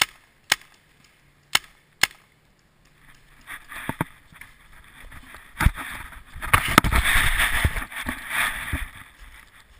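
Paintball marker firing four sharp shots over the first two seconds, then dry leaf litter crunching and rustling underfoot as the player moves through it, loudest in the second half, with a few thumps of footsteps.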